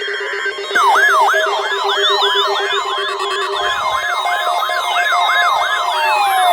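Layered electronic alarm tones. Less than a second in, a loud fast siren sweep starts, rising and falling about three times a second over a steady high tone. A pulsing lower tone fades out around halfway, and a long falling glide sets in near the end.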